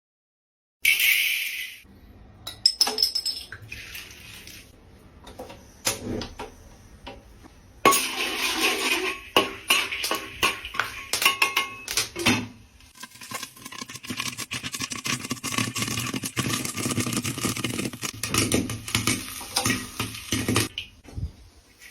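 Metal pot and utensils clattering and clinking, with dense spells of rapid sharp clicks and knocks.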